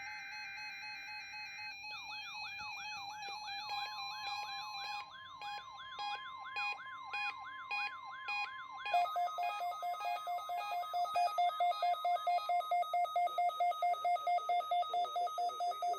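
Weather radio receivers alerting to a NOAA Weather Radio test: a short burst of SAME data buzzing, then the steady 1050 Hz warning alarm tone under a receiver's siren sweeping up about three times a second, and from about nine seconds in a fast pulsing electronic beep.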